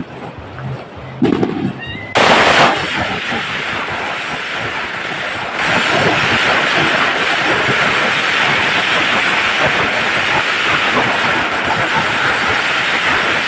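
A 3000-round firecracker string going off: a dense, rapid, unbroken crackle of small bangs that starts suddenly about two seconds in and grows louder and sharper about five seconds in.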